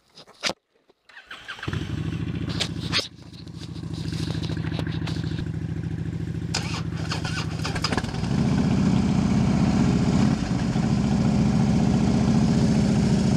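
Cruiser motorcycle engine started after a few clicks, catching about a second and a half in and then idling steadily; it gets louder for the last five seconds.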